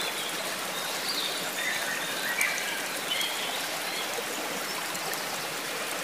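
Flowing stream water running steadily, a continuous rushing and babbling, with a few faint high wavering notes between about one and three and a half seconds in.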